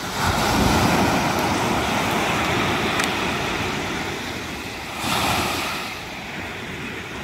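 Waves breaking and washing up a stony beach. One wash swells in just after the start and eases off over a few seconds, and a second, shorter one comes about five seconds in.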